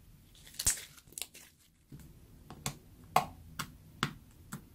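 Orange slime made from peel-off lipstick and shaving foam popping and clicking as it is stretched and poked with a fingertip: a string of about eight short, sharp pops.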